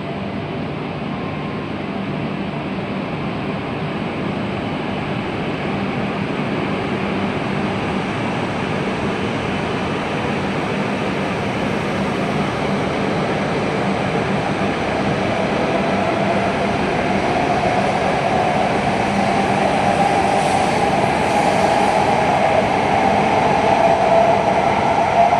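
An E5-series Shinkansen train departing and accelerating alongside the platform: a steady rush of running noise that grows louder throughout, with a motor whine that builds and climbs slightly in pitch over the second half.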